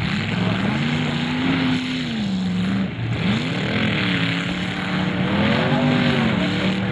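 Demolition derby car engines revving hard as the cars shove against each other, the pitch rising and falling several times over a steady rumble of other engines.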